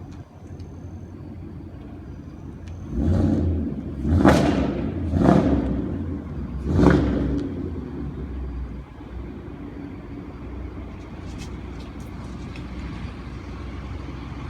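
Ford Mustang GT 5.0 V8 through a loud aftermarket exhaust: a low idle rumble, then several sharp throttle revs in a row about three to seven seconds in, before it settles back to a rumble.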